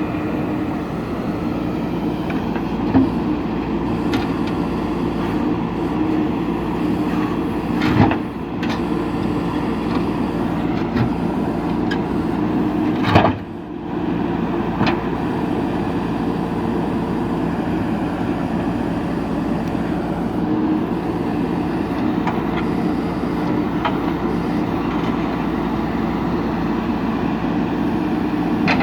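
JCB backhoe loader's diesel engine running steadily, with a few sharp knocks along the way; the loudest comes about halfway through.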